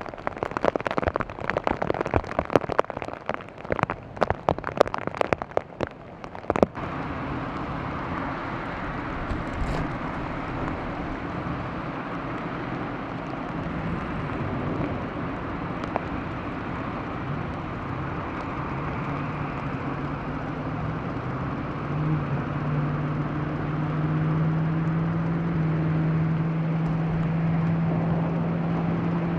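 Heavy rain pelting a car, a dense crackle of drops for about six seconds. It cuts off abruptly into steady road and cabin noise from a moving car, with an engine drone that rises slowly in pitch later on.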